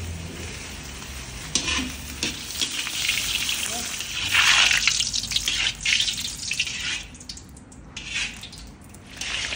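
Cubes of sheep tail fat (dumba) sizzling as they render in a wide metal kazan, the first step of plov, cooked on mutton fat. A metal skimmer stirs them, with a few clinks and scrapes against the pot, and the sizzle surges louder about halfway through.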